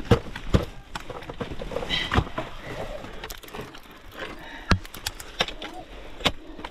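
Climbing gear knocking and scraping on rock during an alpine climb: irregular sharp knocks, a few louder ones spaced a second or more apart, over low rustling.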